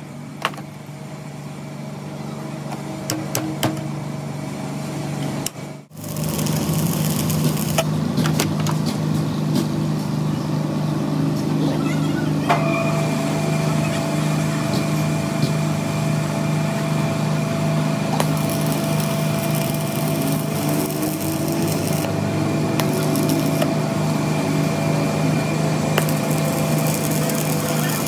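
Steady motor hum at a constant pitch from running workshop machinery. It starts abruptly about six seconds in, after a quieter stretch with a few sharp metal clicks.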